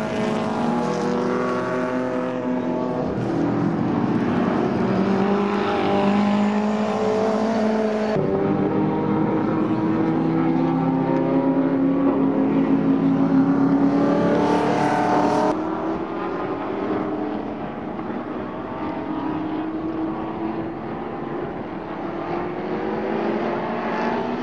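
Historic Group A and Group C touring cars racing through a corner, engines revving up and dropping back through the gears as the cars pass. The sound changes abruptly twice.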